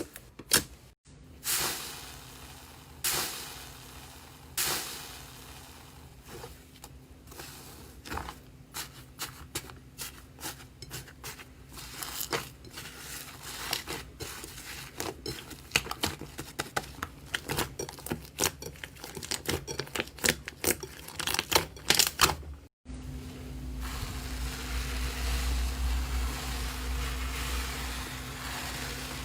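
Slime being worked by hand, with many sharp, irregular crackling and popping clicks, thickest in the second half. After a cut a few seconds before the end, a steadier low rumble with a faint hum takes over.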